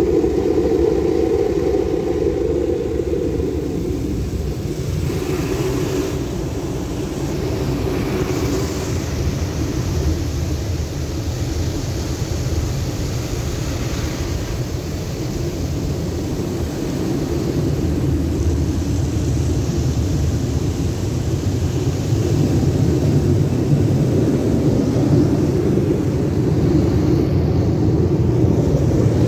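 Automatic car wash machinery running: a steady mechanical rumble, with water spray hissing louder at times.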